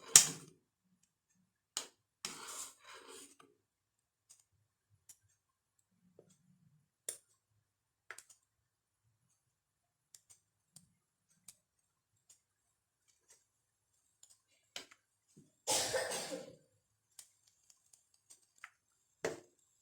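A utensil stirring a saucepan of milk as it boils up: scattered clicks and a few short scraping bursts against the pot, the loudest about sixteen seconds in.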